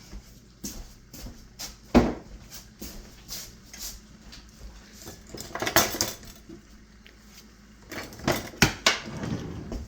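Spatula knocking and scraping against a measuring cup and pan: a string of sharp clinks and taps, the loudest about two seconds in, with a flurry around six seconds and another from about eight seconds in.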